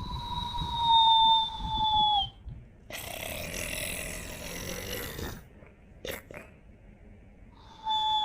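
Cartoon-style whistling snore: a long whistle slowly falling in pitch over a low rumble, then a hissing breath. After a short pause with a couple of faint clicks, the whistle starts again near the end.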